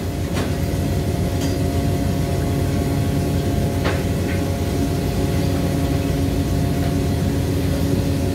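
A heavy engine running steadily with a low, even drone. Two short sharp knocks sound over it, one about half a second in and one about four seconds in.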